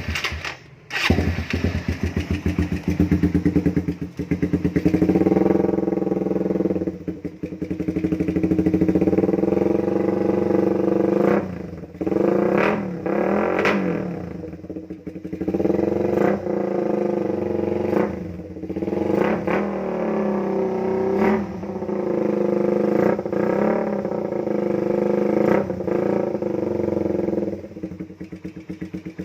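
Motorcycle with an aftermarket exhaust pipe, running hard and loud, revving up and backing off over and over so the engine note repeatedly rises and drops.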